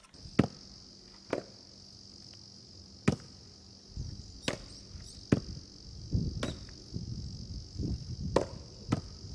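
Firewood being split: about eight sharp chopping strikes into wood, spaced irregularly a second or so apart, over a steady high-pitched chirring of insects.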